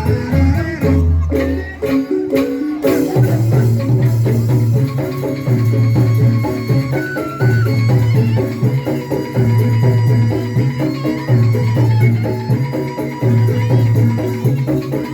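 Traditional-style Indonesian band music, instrumental: melodic instruments over shaker-like percussion. About three seconds in, a low bass figure starts and repeats roughly every two seconds.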